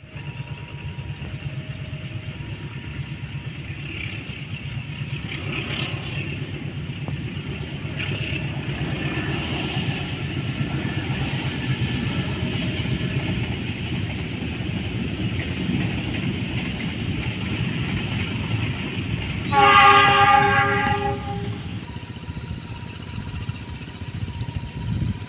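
Freight train running past with a steady low rumble and rail noise that builds through the middle. Near the end a diesel locomotive's horn sounds once, loud, for about two seconds.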